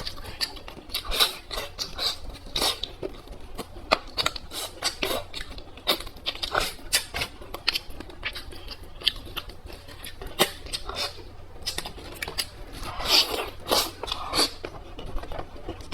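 Close-miked eating sounds: a person chewing and smacking, with many quick, irregular crackles and clicks.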